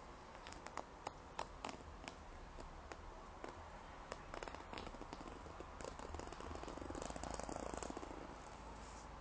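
A rough felt-like fabric cushion being tapped and scratched up close: a few sharp taps in the first two seconds, then a stretch of fine scratching that grows louder about six seconds in.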